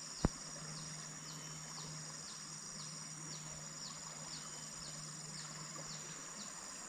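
Insects droning steadily and high-pitched, with a short falling chirp repeating about twice a second. A single sharp click sounds about a quarter second in.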